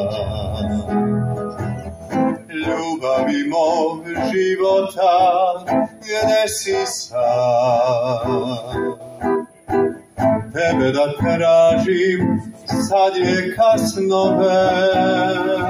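Acoustic guitar played live, plucked and strummed through an instrumental passage of a slow song.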